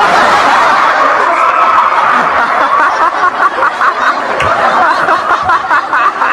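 Crowd of spectators and players laughing and shouting excitedly, with rapid choppy bursts of laughter in the second half.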